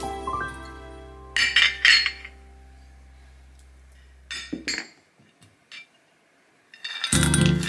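A small glass dish clinking a few times against a stainless steel mixing bowl as soaked dried fruit is tipped into the dough, with a couple more clinks a few seconds later. Background music dies away at the start and comes back near the end.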